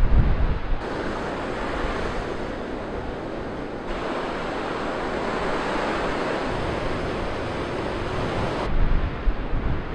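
North Sea surf breaking and washing on a sandy beach as a steady rush, fuller from about four seconds in. Wind buffets the microphone at the start and again near the end.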